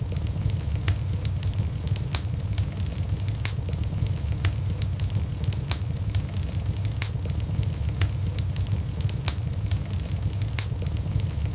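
Wood fire crackling in a fireplace: frequent sharp pops and snaps over a steady low rumble of the burning logs.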